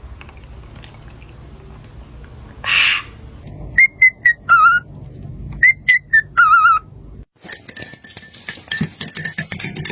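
Pet parrot whistling: two short phrases of clear whistled notes, each ending in a warbling, wavering lower note. A brief rush of noise comes before the first, and scattered clicks follow near the end.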